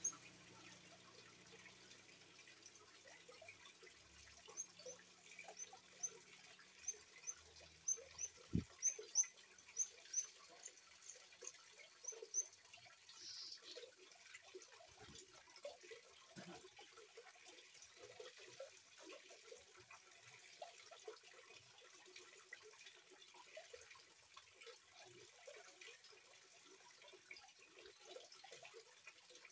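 Juvenile oriental magpie-robin (kacer) giving a run of short, high chirps, about two a second, for some eight seconds starting about four seconds in, with a brief scratchy note just after. Under it, a continuous gentle trickle of running water.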